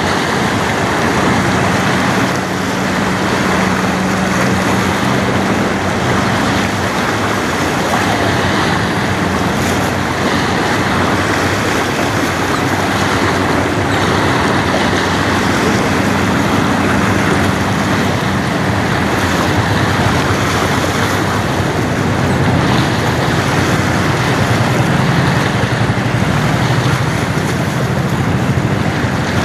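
Steady wind and rushing water noise, with a low hum from the passing bulk carrier Federal Churchill's machinery that fades after several seconds and comes back near the end.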